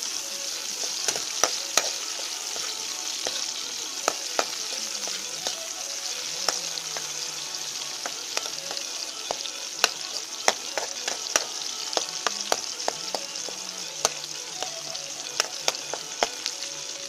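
Onion and garlic sizzling in hot oil in a metal wok, with a metal spoon stirring and scraping against the pan in frequent sharp clicks.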